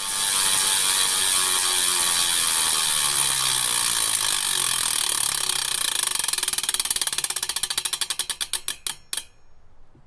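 Bicycle freewheel ticking as a spun wheel coasts down: a fast run of pawl clicks that slows into separate ticks and stops near the end.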